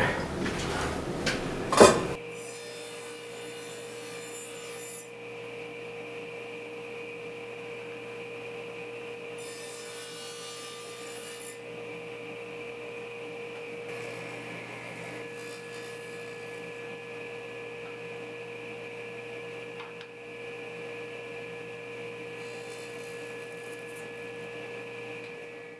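Ridgid table saw running with a steady hum while its blade cuts a rabbet into the edge of a plywood insert. The higher cutting sound comes and goes several times, and there is a single knock about two seconds in.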